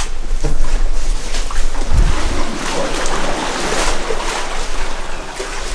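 People in waders wading through floodwater, with steady sloshing and splashing of water around their legs.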